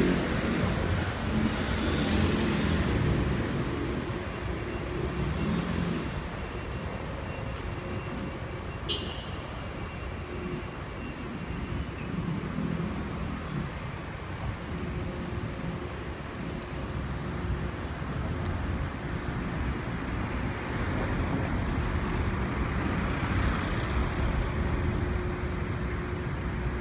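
Road traffic on a city street: vehicles driving past with steady engine and tyre noise, swelling in the first few seconds and again for a while after about 22 seconds.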